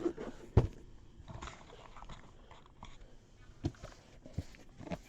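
A cardboard mystery box being handled: scattered knocks and crinkling, with one sharp knock about half a second in.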